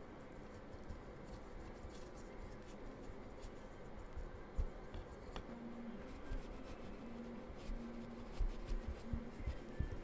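A wipe rubbing and dabbing over painted air-dry clay castings on a wood panel, with scattered light scratches and taps and a couple of dull knocks; the raw sienna paint is being wiped back off the raised surface.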